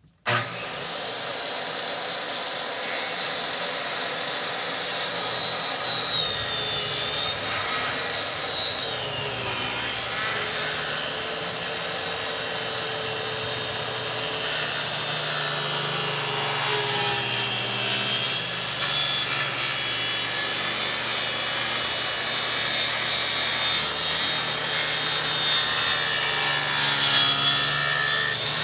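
An electric power tool working wood, running steadily and loud throughout, with its pitch wavering slightly under load.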